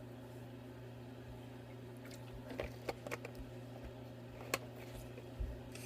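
Someone chugging Gatorade from a bottle: faint liquid squish and a few small clicks over a steady low hum.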